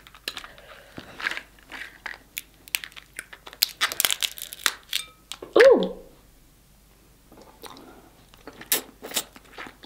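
Snow crab leg shells cracking and snapping as they are broken apart by hand, with crunching and wet eating sounds. A short falling hum from the eater's voice about halfway through is the loudest sound.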